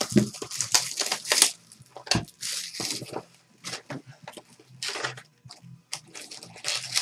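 A cardboard box of trading cards being opened by hand: irregular rustling, scraping and crinkling of cardboard and plastic wrapping, in short uneven bursts.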